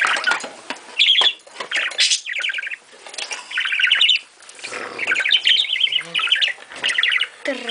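Budgerigar giving short bursts of rapid, harsh chattering calls, one roughly every second or so: a nesting bird agitated at having its eggs and nest box handled. A few sharp knocks come from the wooden nest box being moved.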